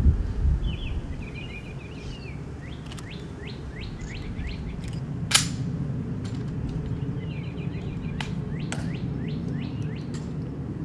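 Birds chirping and trilling, with runs of quick falling notes, over a steady low rumble. One sharp click sounds a little over five seconds in while a rifle is being handled in inspection, and a couple of low thumps come at the very start.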